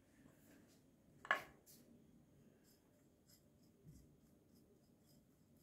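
A fingertip stirs dry ground spices in a small ceramic dish, making faint scratching and rubbing. There is one louder, short scrape about a second in.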